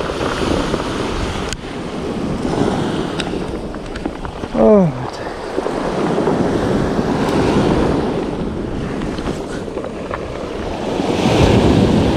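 Waves breaking and washing up a cobble beach, with wind on the microphone; the surf swells louder near the end. About four and a half seconds in, a brief falling cry cuts through.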